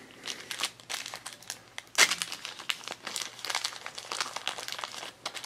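Small printed accessory wrapper crinkled and torn open by hand: a quick run of crackles, loudest about two seconds in.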